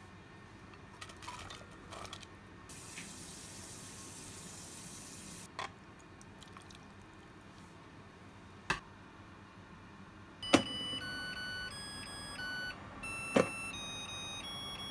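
Water runs for about three seconds, with a few small knocks and clicks around it. About two-thirds of the way in, after a sharp click, an electric rice cooker plays a short electronic melody of steady beep tones stepping up and down in pitch as cooking is started, with another click partway through.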